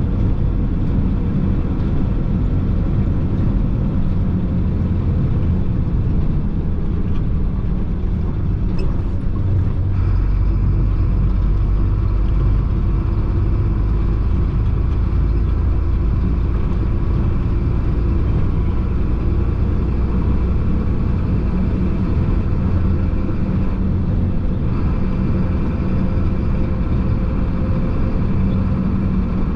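Chenglong concrete mixer truck's diesel engine and tyre noise heard from inside the cab, a steady low drone with a constant hum. The low rumble grows heavier about ten seconds in.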